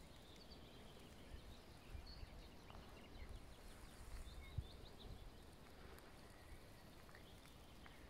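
Faint outdoor ambience: a low rumble of wind on the microphone, with distant birds giving short, high chirps here and there. A brief low thump about halfway through.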